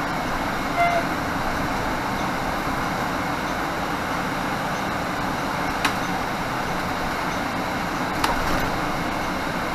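Inside a 2018 Nova Bus LFS diesel transit bus under way: a steady diesel engine and road rumble, with a few short sharp clicks or rattles.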